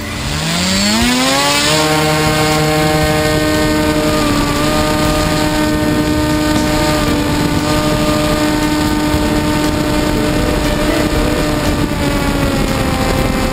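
Electric motor and propeller of a Multiplex FunCub RC model plane spooling up to a steady whine over the first couple of seconds, then holding at full throttle through takeoff and climb. The pitch eases slightly about four and a half seconds in. Heavy rushing wind from the prop wash blows over the camera just ahead of the propeller.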